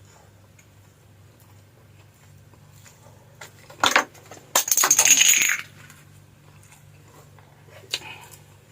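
A hard clink on a dish about four seconds in, then about a second of loud, ringing clatter, with a smaller click near the end: small hard objects on tableware at a meal.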